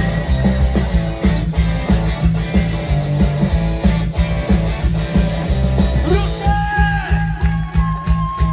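Live rock band playing through a festival PA: distorted electric guitars, bass and a steady drum beat. About six seconds in, a held, gliding melody line comes in over the top.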